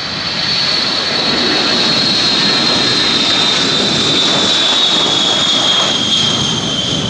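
Turbine aircraft engines running loud and steady, with a high whine that slowly falls in pitch.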